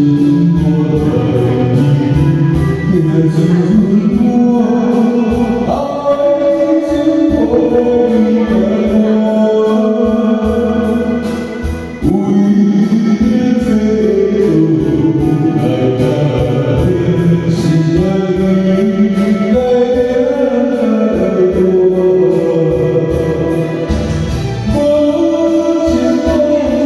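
A voice singing a Taiwanese Hokkien ballad over a keyboard backing track, holding and sliding between long notes.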